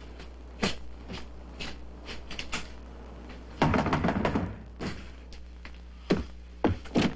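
Door sounds: a door thuds shut about half a second in, a louder burst of sound in the middle, and three hard knocks on a wooden front door near the end.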